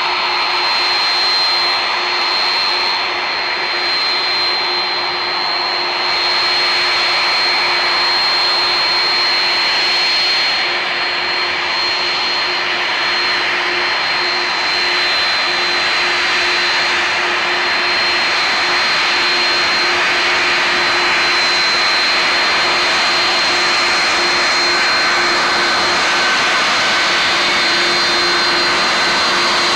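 Airbus A330 jet engines running steadily at low power: a high whine over a lower hum and a broad rush of engine noise.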